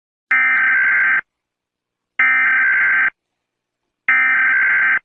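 Emergency Alert System SAME header: three loud bursts of buzzing digital data tones, each about a second long with about a second of silence between. This coded header marks the start of an EAS activation.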